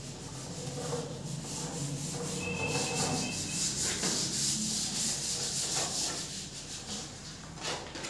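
Scratchy rubbing, like sanding or scraping against a surface, growing louder toward the middle, over a steady low hum.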